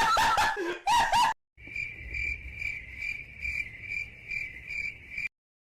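A burst of laughter cuts off about a second in. Then comes the 'cricket silence' sound effect, the awkward-silence gag: a cricket chirping steadily at one high pitch, about two or three chirps a second, stopping just before the end.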